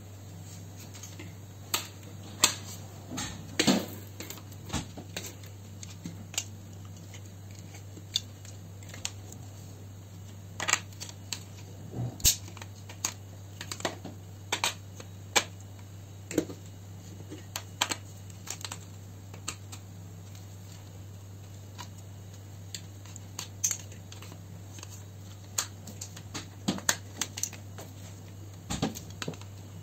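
Flathead screwdriver prying and levering at the plastic end cap of a T5 fluorescent tube light fitting: irregular clicks, taps and scrapes of steel on plastic, over a steady low hum.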